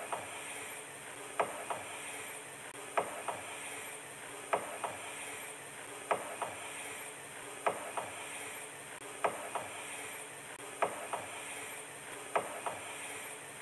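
A quiet, regular mechanical double click, two short clicks about a quarter second apart, repeating evenly about every one and a half seconds over faint room tone.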